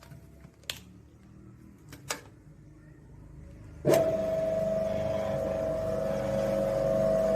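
Coffee roasting machine being switched on: two sharp clicks, then about four seconds in its motor starts suddenly and runs on with a steady hum and a held whining tone.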